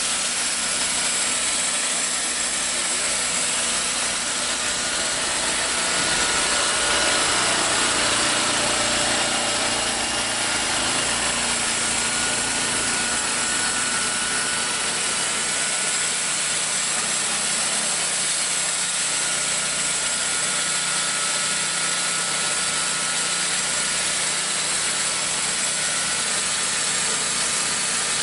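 Gas engine of a TimberKing portable sawmill running steadily at a constant speed.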